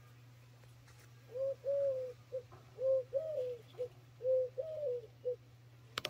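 A dove cooing: three phrases of three coos each, a short note, a longer one, then a short one. A sharp click comes at the very end.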